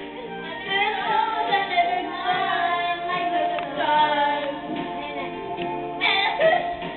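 Girls singing karaoke into microphones over a backing track, with a sudden louder burst of voice about six seconds in.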